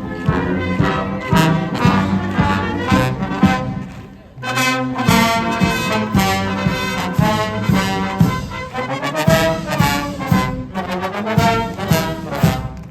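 Military band and bugles playing a march: massed brass with steady drum beats, breaking off briefly about four seconds in before the brass comes back in.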